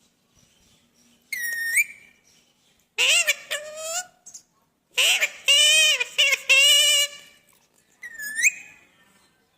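A pet parrot whistling and talking. A short whistle rises at its end, followed by two stretches of high-pitched, speech-like mimicry, then a second short rising whistle near the end.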